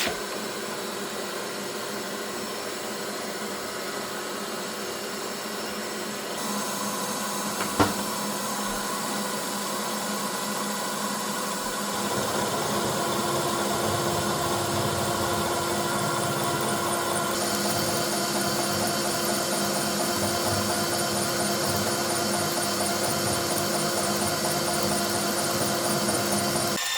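Milling machine running steadily, most likely cutting metal, with several steady tones that shift and grow louder a few times. There is one sharp click about eight seconds in.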